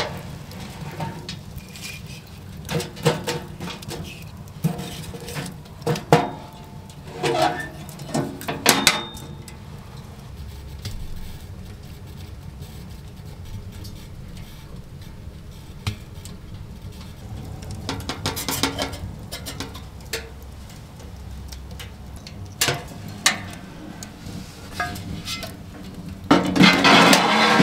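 Metal clinks and knocks from a stainless steel Winnerwell pizza oven wood stove being handled, its doors opened and shut. Near the end there is a longer, louder metallic scraping as a pizza peel slides into the oven.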